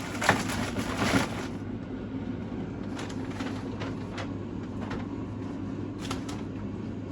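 Grocery packaging being handled: a dense crinkling rustle for about a second and a half, then a few light clicks and taps, over a steady low hum.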